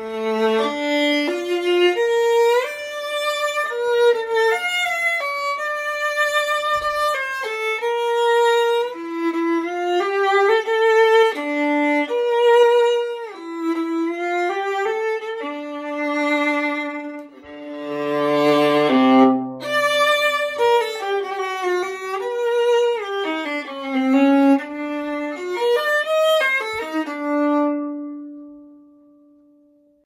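Antique German 15.5-inch viola labelled Christian Hoffmann, played solo with the bow: a melody of held notes, dipping to a brief low note just past the middle, and ending on a long held note that fades away.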